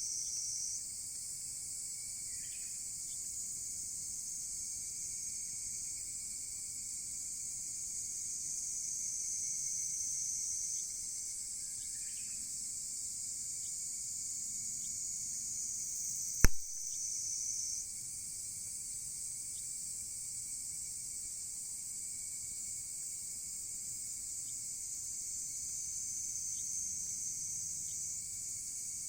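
Steady high-pitched trilling of crickets and other insects, swelling and easing in patches. About halfway through, a single sharp pop from the burning wood of the campfire.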